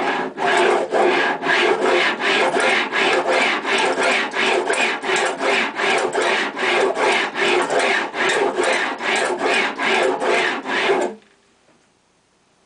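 A fret-end file set in a white block rasping back and forth along the fingerboard edge of a Cat's Eye CE-2000 guitar, trimming the fret ends flush. Even strokes, roughly two and a half a second, that stop abruptly near the end.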